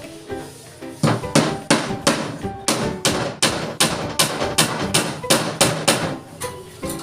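Hammer blows in a steady run, about three a second, starting about a second in and stopping near the end, over background music.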